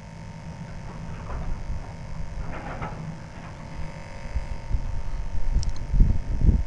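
Wind buffeting the microphone, with heavy low rumbling gusts growing stronger near the end, over a steady low background hum.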